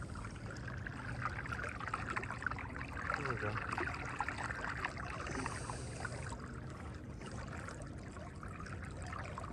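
Water lapping and splashing against the hull of a canoe under way, a steady wash with many small crackling drips and slaps.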